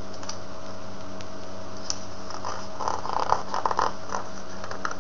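Pages of a picture book being handled and turned: scratchy paper rustling with a few light taps from about two to four seconds in, over a steady background hum.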